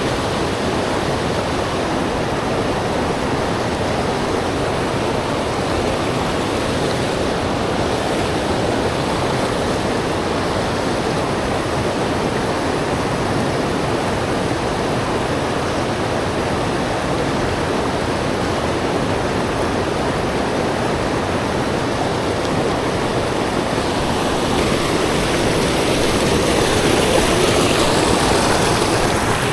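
Steady rush of flowing river water, growing a little louder near the end.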